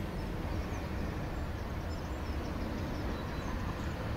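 Steady hum of a home-built quadcopter's Emax 2213 935KV motors and 10-inch propellers as it flies overhead.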